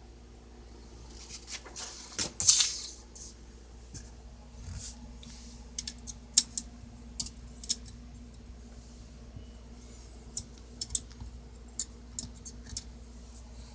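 Olivetti Underwood Studio 44 portable typewriter being worked by hand: a short scraping slide of its mechanism about two and a half seconds in, then scattered sharp metal clicks at an uneven pace.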